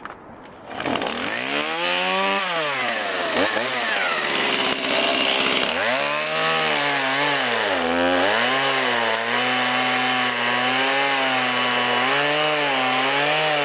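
Chainsaw cutting into wood. It starts about a second in, its engine revving up and down several times, then holds at a fairly steady high speed with small dips in pitch through the second half.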